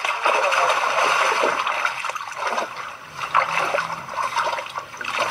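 Water splashing and running in a shallow river, an uneven rushing noise with irregular splashes.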